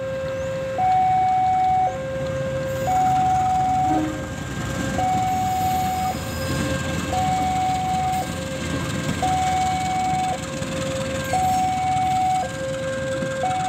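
Railway level-crossing warning alarm sounding its two-tone signal, a lower and a higher tone alternating about once a second. Beneath it is the noise of a diesel-hauled train passing over the crossing.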